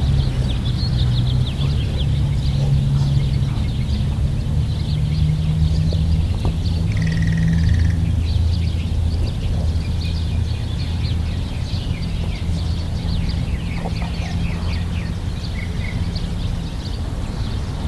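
A steady low rumble with birds chirping over it in many short, high notes, and one brief steady whistle-like note about seven seconds in.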